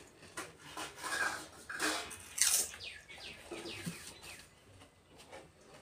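Close mouth sounds of children eating pani puri: the crisp puri shells crunching and being chewed in short, irregular bursts. A few quick falling chirps come about three and a half seconds in.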